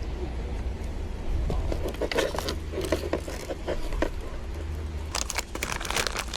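Handling noises: runs of light clicks, scrapes and rustles in two clusters, over a low steady rumble.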